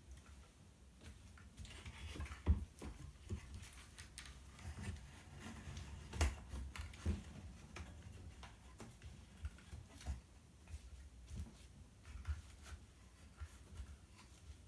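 Irregular light clicks and taps with soft rustling from hands working cross-stitch fabric on a wooden scroll frame, pulling and fixing the side edge taut. The sharpest click comes about two and a half seconds in.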